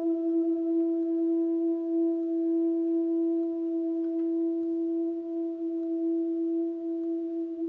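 Tuba holding one long, steady high note, played softly with a clean, nearly pure tone that barely wavers.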